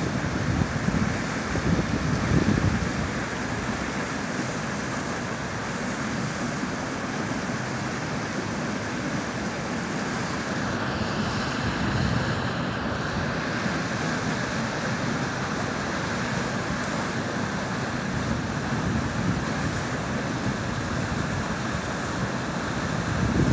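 Steady rush of river water churning white over rapids. Wind buffets the microphone with low rumbles in the first few seconds and again at the very end.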